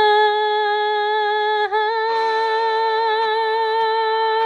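A female singer holding one long, high sustained note at the end of a song. Backing music comes in underneath about two seconds in.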